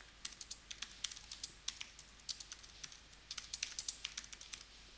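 Faint typing on a computer keyboard: quick runs of key clicks with short pauses, stopping shortly before the end.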